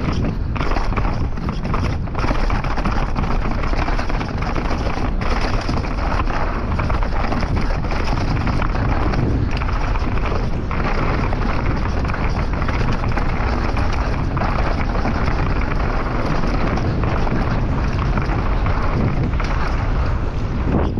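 Chainless downhill mountain bike descending a rough dirt trail at speed: wind rushing over the microphone and tyres rumbling over the ground, with frequent knocks and clatters from the bike.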